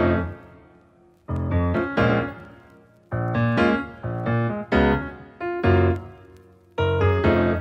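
Background piano music: chords struck every second or two that ring out and fade, with short pauses between them.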